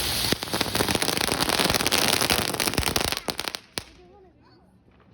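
Firecrackers going off in a rapid string of crackling bangs for about three seconds, stopping suddenly with one last pop.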